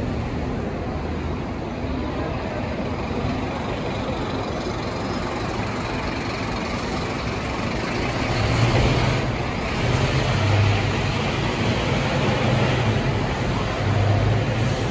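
City bus engine and tyre noise as a single-deck bus passes close and pulls away, over steady traffic noise. In the second half a deeper engine drone grows louder as another vehicle approaches.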